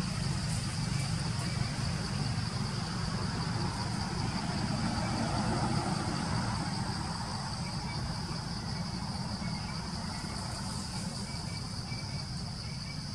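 Forest ambience: insects droning steadily in a high band, over a low rumble that grows a little louder about six seconds in.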